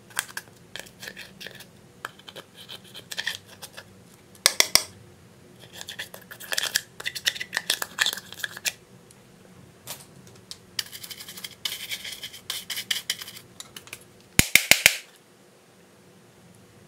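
A small metal spatula scraping pressed eyeshadow out of the metal pans of a makeup palette, in quick bursts of scratching and clicking. There is a sharp cluster of taps about four and a half seconds in and another about fourteen seconds in.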